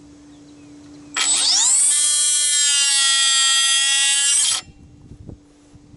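Cordless oscillating multi-tool with a plastic-cutting blade, cutting into a plastic dash radio bezel. It spins up quickly to a steady high whine about a second in, runs for about three and a half seconds, and stops suddenly.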